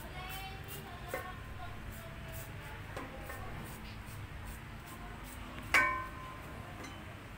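A single sharp clink that rings briefly about six seconds in, over a low steady hum.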